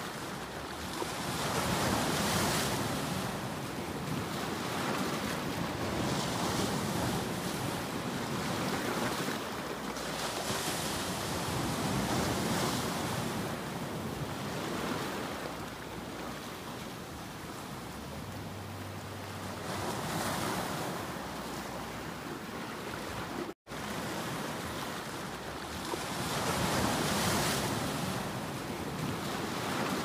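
Sea waves breaking and washing over shoreline rocks, the surf swelling and easing in irregular surges every few seconds. The sound drops out briefly about two-thirds of the way through.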